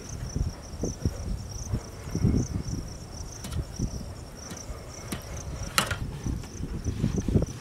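Insects chirping steadily, a high pulsing chirp about three times a second, over low irregular thuds and handling noise from knife work on raw goat meat, with one sharp click near the end.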